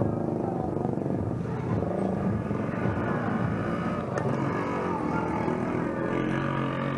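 Street traffic: small motorcycle engines running, with a steady engine note near the end as a motorcycle-sidecar tricycle goes by.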